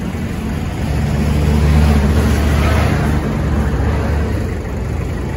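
Mazda Bongo's R2 2.2-litre diesel engine idling with a steady low drone, which swells louder from about a second in and eases back after about three seconds.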